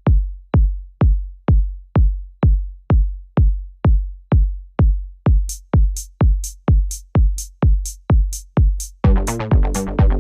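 Electronic dance music: a drum-machine kick drum alone, steadily about twice a second. Off-beat hi-hats join about halfway through, and a synth pattern comes in near the end.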